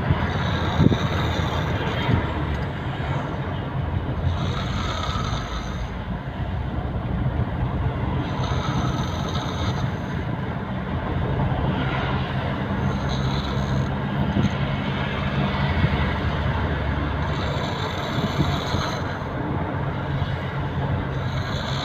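A person snoring heavily in deep sleep, with a hissing breath about every four seconds over a steady low rumble.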